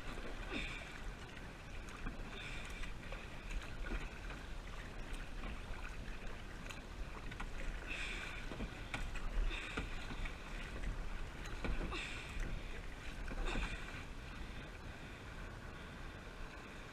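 Kayak paddle strokes dipping into and splashing water, roughly one every one to two seconds, over a steady low rumble of wind on the camera's microphone.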